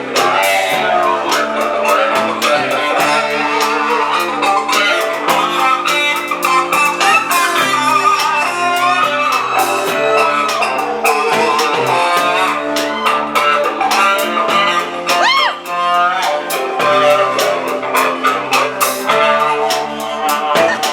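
Live band playing: an electric guitar lead with bent notes over bass and steady drum and cymbal hits.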